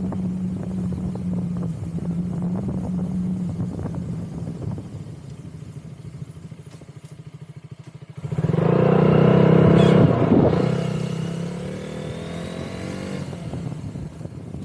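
Motorcycle engine running with wind rushing past, easing down to a low, even idle about halfway through, then pulling away loudly about eight seconds in, its pitch rising as it accelerates before settling back.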